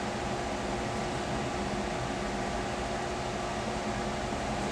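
Steady background hum and hiss of a running fan or appliance, with a faint steady tone in it.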